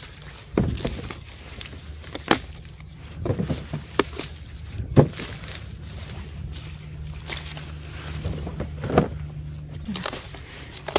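Intermittent rustles, snaps and knocks of hands working through garden plants while picking vegetables, the sharpest about five seconds in, over a steady low hum.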